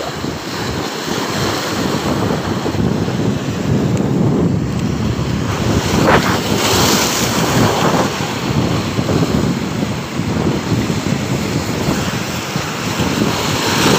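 Rough sea waves breaking and washing against a rock seawall, with strong wind buffeting the microphone.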